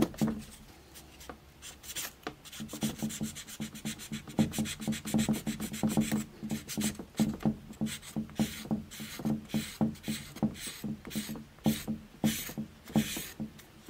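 An abrasive rubber block rubbed back and forth over the steel blades of bonsai pruning shears to scour off dirt: a run of short scraping strokes, about two a second, getting stronger in the second half.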